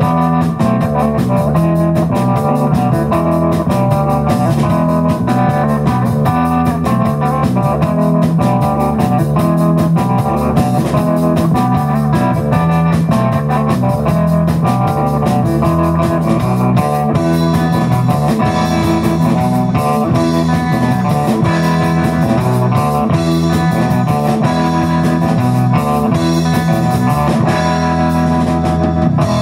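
Live surf rock band playing: electric guitar, bass guitar and drum kit, loud and steady.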